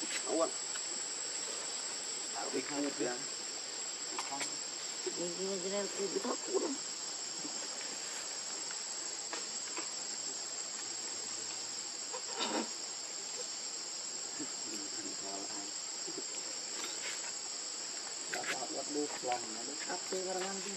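Steady high-pitched insect chorus of the forest. A few short voice-like calls come and go over it, about three and six seconds in and again near the end, with one sharp click in the middle.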